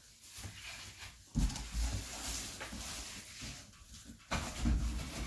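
Knocks and rustling as the parts of a boxed electric heater are handled and set down, with a louder low knock about a second and a half in and more near the end.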